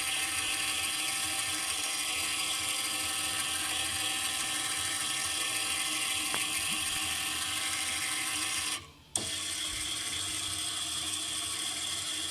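Electric gearmotor turning a small spur gear around the large ring gear of a robot's waist-rotation drive: a steady motor whine with gear-meshing noise. The small gear is held in mesh by a spring-loaded self-tensioning mount. The motion stops for a moment about nine seconds in, then starts again.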